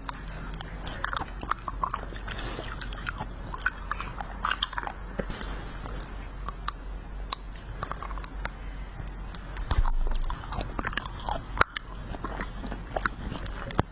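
Close-up chewing and biting of wax-bottle candy, with irregular sharp crunches and clicks of the wax.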